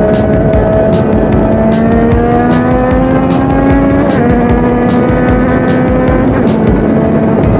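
Yamaha MT-09 first-generation three-cylinder engine through an Akrapovic shorty exhaust, under way. It rises steadily in pitch for about four seconds, drops sharply at an upshift, climbs gently again, and drops once more about six seconds in before holding steady.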